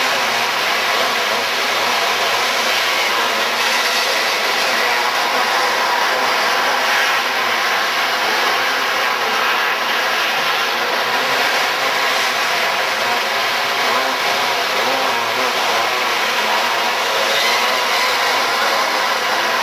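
Engines of several outlaw dirt karts racing on a dirt track, blending into one steady drone of many engines.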